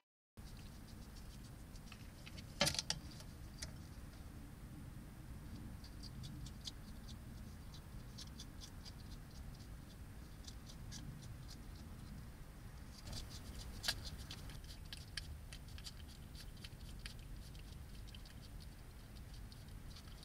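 A European hedgehog feeding: quick runs of small clicking, smacking chews in bunches, over steady low background noise, with one louder knock about two and a half seconds in.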